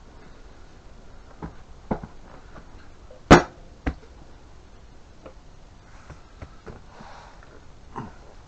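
Scattered knocks and clunks from handling a motorcycle seat and its mounting parts as it is fitted, with one louder sharp knock about three seconds in.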